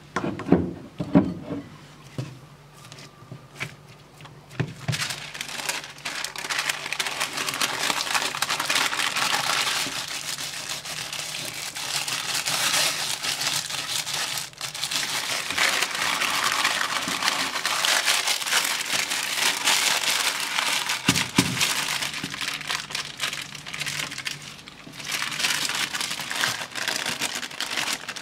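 Baking paper crinkling and rustling steadily as hands roll a sticky fig-and-almond mixture into a log inside it. A few knocks of a knife against a glass bowl come in the first two seconds.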